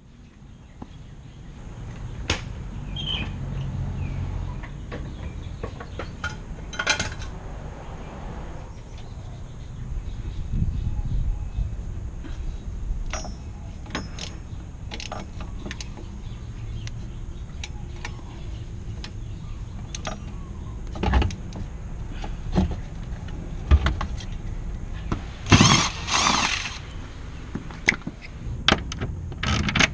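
Scattered metallic clinks and knocks of hand tools and parts being handled while working on a car's exhaust, over a low steady rumble, with two short louder noisy bursts near the end.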